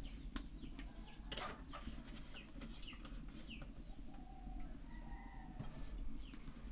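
Small birds chirping repeatedly in short falling notes, with a chicken's drawn-out call about four seconds in, over a low steady background noise.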